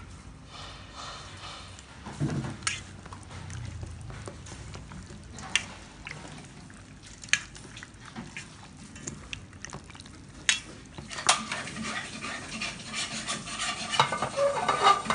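Hands mixing raw pork ribs in a stainless-steel bowl: wet squelching of meat with scattered clicks and knocks of pieces against the bowl, busier in the last few seconds.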